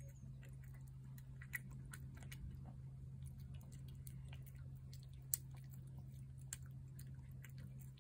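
A cat eating shredded wet food from a plate: faint chewing with many small wet clicks, and one sharper click about five seconds in. A steady low hum runs underneath.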